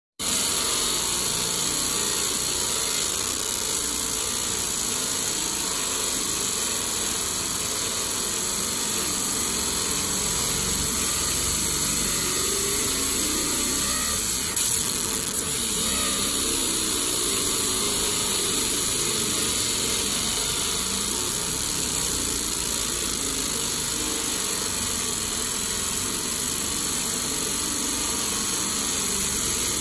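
Fiber laser marking machine running through a 3D engraving job on a coin: a steady hiss, strongest in the treble, that holds level throughout, with one small click about halfway through.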